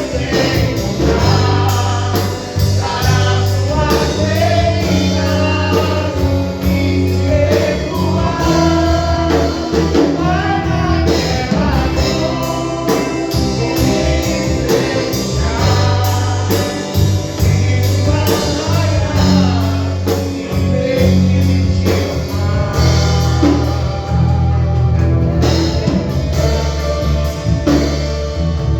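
A gospel band playing a worship song, with a sung melody over bass, guitar and a steady drum beat.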